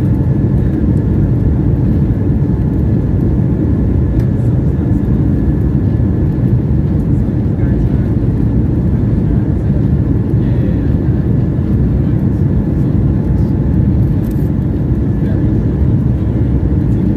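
Cabin noise inside an airBaltic Airbus A220 rolling along the runway: a loud, steady low rumble from its Pratt & Whitney PW1500G geared turbofan engines and the wheels on the runway, with a faint steady whine above it.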